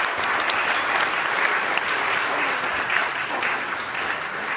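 Audience applauding: a dense, steady clapping from many hands.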